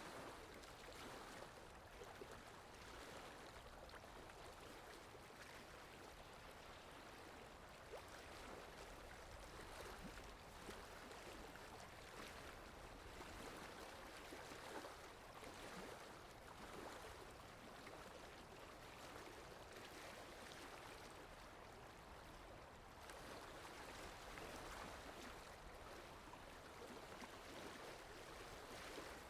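Water lapping with wind: a faint, steady wash of water with small irregular splashes and a low wind rumble underneath.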